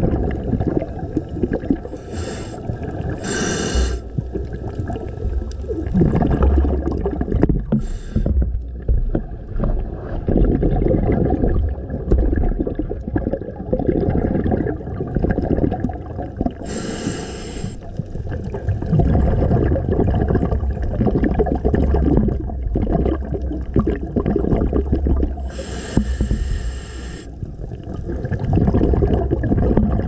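Scuba diver breathing through a regulator underwater: a continuous low bubbling rumble of exhaled air, broken by a few short hisses of inhaled air through the regulator.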